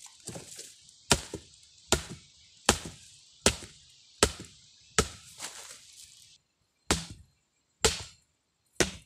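Machete chopping into a freshly cut log to strip its bark: sharp strokes about one every 0.8 s, nine in all, with a short pause about two-thirds through.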